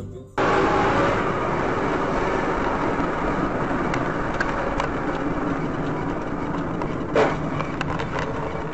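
Steady road and engine noise of a car being driven, recorded by a dash cam inside the car, after background music cuts off a fraction of a second in. A few faint clicks and one brief louder sound come about seven seconds in.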